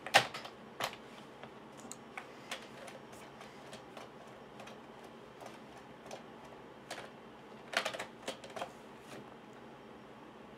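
A baby's hands slapping and pressing the keys of a computer keyboard: irregular key clacks at an uneven pace. The loudest clack comes right at the start, with a quick cluster of sharp clacks about eight seconds in.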